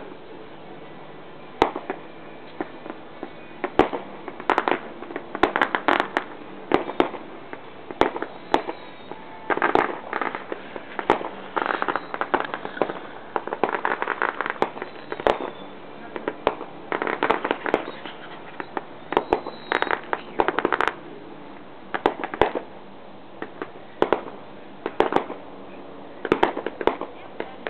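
Aerial fireworks going off: a long run of sharp bangs and crackling, coming in volleys with dense clusters of reports and short lulls between them. These are air-show pyrotechnics set off as mock 'ack ack' flak bursts.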